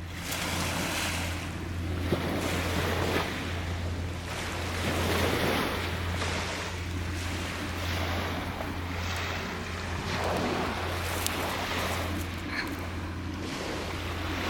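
Small waves washing onto a sandy beach, a rushing noise that swells and fades every few seconds, over a steady low rumble of wind on the microphone.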